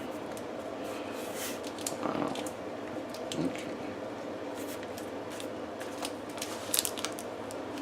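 Plastic packaging (bubble wrap and packing tape) being handled and pulled at by hand, giving irregular crinkling and sharp crackles. A cluster of louder crackles comes near the end.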